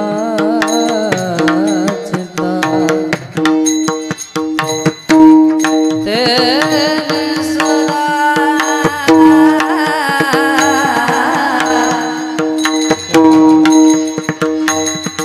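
Indian devotional music: hand-drum strokes over a steady drone, with a melody line that wavers and glides in pitch.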